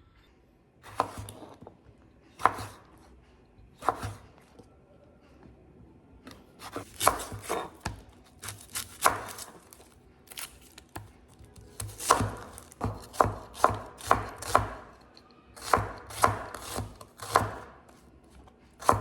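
Kitchen knife chopping food on a cutting board. Single strokes come first, then irregular runs of quick chops with short pauses between them.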